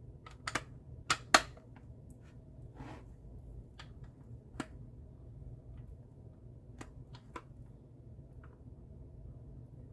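Scattered sharp clicks and knocks of things being handled at a kitchen counter, a cluster in the first second and a half with the loudest there, then a few single ones spaced out.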